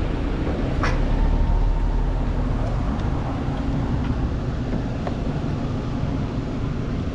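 Steady low rumble of road traffic and vehicle engines, with a sharp click about a second in followed by a brief steady tone.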